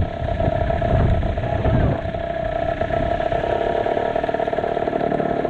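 Kawasaki KX60 two-stroke dirt bike engine running steadily at high revs, with low rumbling in about the first two seconds.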